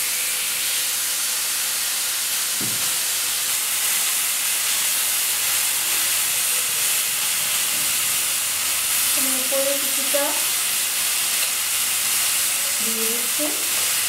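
Marinated T-bone steak sizzling in a hot ridged grill pan, a loud, steady frying hiss.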